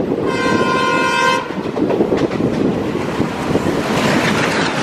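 A diesel locomotive horn sounds once for about a second, over the running noise and clickety-clack of a moving passenger train. Near the end the rush of a second train passing close on the adjacent track grows louder.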